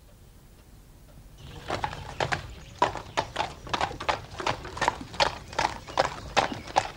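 A horse's hooves clip-clopping at a quick, regular beat, about four or five hoofbeats a second, as it pulls a carriage. The hoofbeats begin about one and a half seconds in, after a near-silent start.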